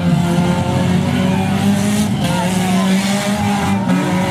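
Engines of several compact demolition derby cars revving hard together, their pitches rising and falling over one another.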